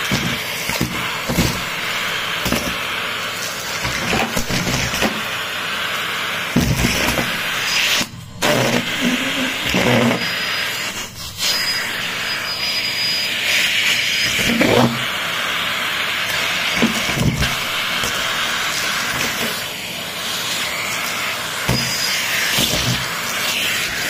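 Numatic Henry cylinder vacuum cleaner running with a steady hiss of suction through its hose, debris rattling and knocking as the nozzle picks it up; the sound dips sharply for a moment about eight and eleven seconds in.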